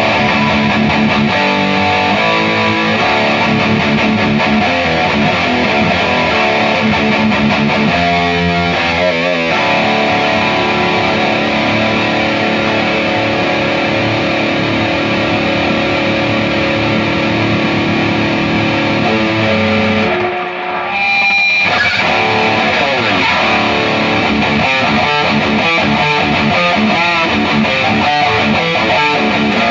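High-gain distorted electric guitar riffing through a Peavey 6505 MH valve head into a Mesa 2×12 cabinet, pushed by a TS9DX Turbo Tube Screamer. The playing cuts out briefly about two-thirds of the way through, then picks up again.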